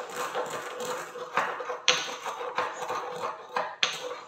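Stone pestle crushing roasted fenugreek seeds in a small stone mortar: gritty grinding and scraping, broken by several sharp knocks of stone on stone.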